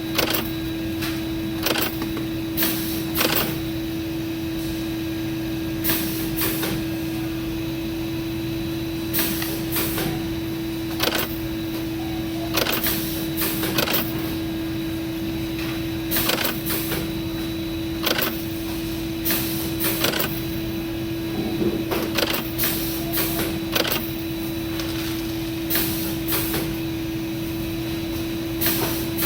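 Factory machinery running with a steady hum and one constant tone, broken by short irregular bursts of noise every second or so.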